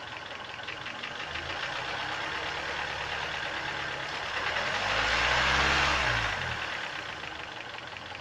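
Hyundai Sonata engine running on LPG, revved up from idle about a second in, with a bigger rise in the middle that falls back to idle. A rapid, even ticking knock runs under the engine note; the owner is chasing it and suspects it may be the timing chain.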